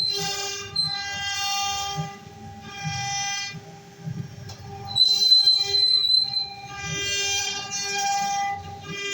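CNC wood router engraving. The stepper motors whine in pitched bursts that start and stop every second or so as the axes move, over a steady tone from the running spindle.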